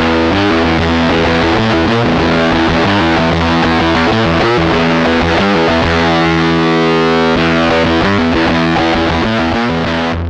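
Electric guitar played with distortion through a budget pedalboard of cheap effects pedals, a run of chords and notes, dying away right at the end.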